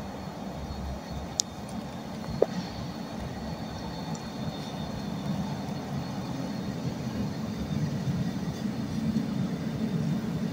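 TransPennine Express Class 397 electric multiple unit approaching along the platform, a low rumble growing steadily louder. Two sharp clicks come about one and two seconds in.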